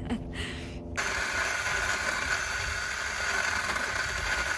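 Craftsman 10-inch electric chainsaw running steadily with a high whine, coming in abruptly about a second in.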